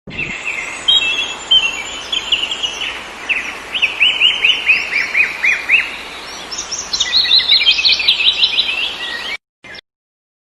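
Songbirds chirping and singing: runs of quick, downward-sweeping chirps over a steady hiss. The sound starts abruptly and cuts off suddenly near the end.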